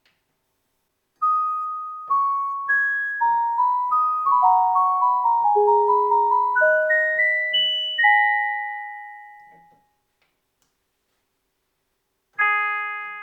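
Yamaha DX9 four-operator FM synthesizer playing a melody of single notes, each struck and then dying away, ending on a longer note that fades out. After a few seconds of silence, a new, fuller sound starts near the end.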